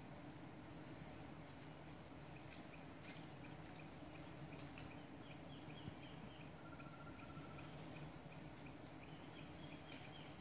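Forest insects buzzing in a faint, steady high drone that swells three times, with runs of short repeated chirps.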